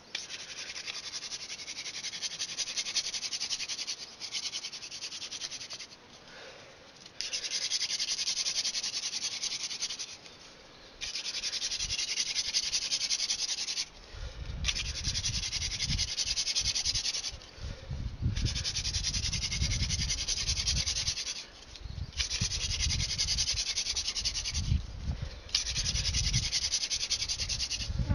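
Hand-drill friction fire: a wooden spindle spun back and forth between the palms grinds into a wooden hearth board with a dry, raspy rubbing. The rubbing comes in runs of a few seconds, broken by short pauses as the hands go back to the top of the spindle. From about halfway through, a low rumble comes in under the rasp.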